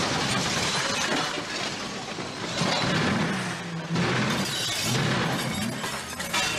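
Glass shattering and things breaking in a long run of crashes as a car smashes through displays.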